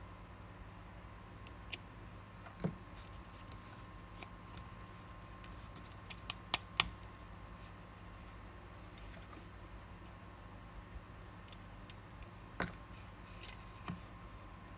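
Scattered small metallic clicks and taps of tweezers and fingers handling a steel automatic wristwatch case. A quick run of four clicks about six seconds in is the loudest.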